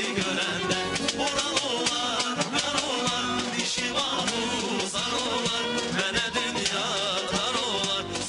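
Men singing into microphones over a live ensemble of tar, violin and percussion playing a steady, rhythmic accompaniment.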